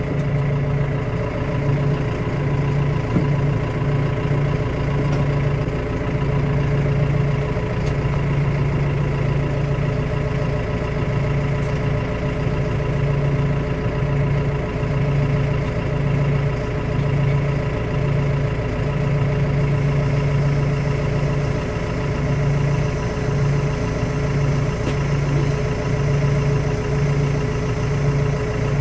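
Diesel farm tractor engine running steadily, heard from the cab: an even engine hum with a low drone that swells and fades unevenly.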